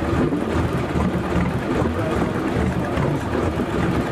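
A boat's engine running steadily, mixed with a low, uneven rumble of wind and water on open sea.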